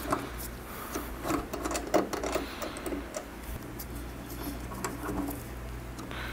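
Light, irregular metallic clicks and ticks of a 5 mm Allen key working out the bolts at the front of a motorcycle fuel tank, over a steady low hum.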